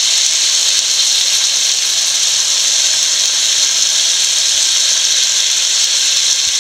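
Chicken and breadfruit pieces sizzling steadily in a hot pan of fried onions and spices as coconut milk is ladled in.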